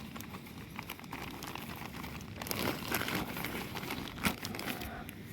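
Plastic wrapping crinkling and rustling as a wrapped package is handled and pulled open, with scattered small clicks, busier in the second half.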